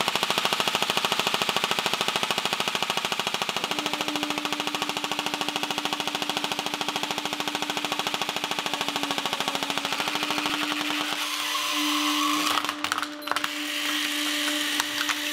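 Clear-plastic M4 airsoft rifle firing full-auto with its trigger held down, a fast steady rattle that thins out about ten seconds in. A steady hum from the hydraulic press comes in a few seconds in, and near the end the rifle's plastic body cracks and snaps as the press crushes it.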